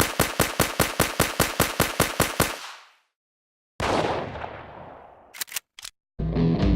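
M2 .50-calibre heavy machine gun sound effect firing a burst of about a dozen shots, about five a second, stopping about two and a half seconds in. After a pause comes a sudden blast that fades over about a second and a half, then a few quick clicks, and guitar music starts near the end.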